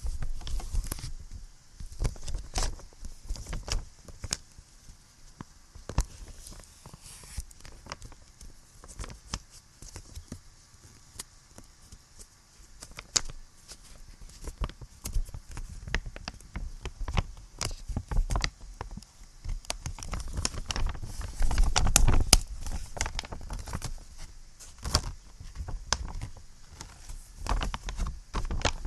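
Close-miked tapping and scratching on small handheld objects: irregular clicks and scrapes, thickening into a louder, denser run of scratching about three quarters of the way through, over a steady recording hiss.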